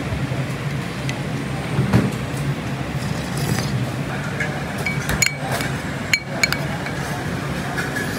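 Crockery and cutlery clinking in a hawker centre, several sharp clinks with short ringing a little past halfway, over a steady low hum of background din.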